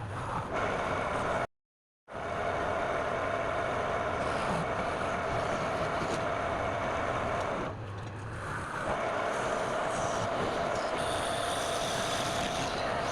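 Wood lathe running with a steady whine while a tool or abrasive works the spinning workpiece. The sound drops out completely for about half a second near the start, and dips briefly around two-thirds of the way through.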